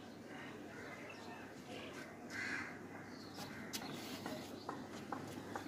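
Faint outdoor ambience with a bird calling once, about two and a half seconds in, and a few light clicks later on.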